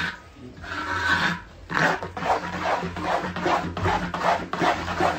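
Metal spatula scraping and stirring a thick paste frying in oil in a large iron wok. From about two seconds in, quick regular strokes come about three or four times a second.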